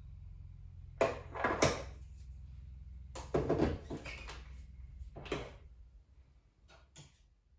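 Metal clunks and clicks as the portafilter of a Sage espresso machine is handled and locked into the group head, about five short knocks in all. A low steady hum runs underneath and fades about six seconds in.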